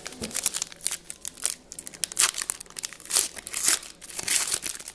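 Foil wrapper of a football trading-card pack crinkling and tearing as it is opened by hand, in a quick run of sharp crackles.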